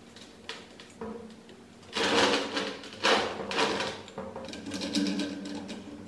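Steel parts being handled and fitted together: a bolt and nut clinking and scraping against a steel square-tube lever and flat bar. The sound comes in irregular bursts of rattling, loudest about two and three seconds in.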